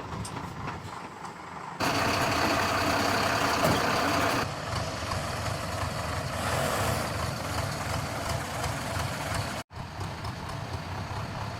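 Heavy diesel engine of a truck or backhoe loader running steadily. It is louder and rougher for a couple of seconds near the start, and the sound breaks off briefly near the end.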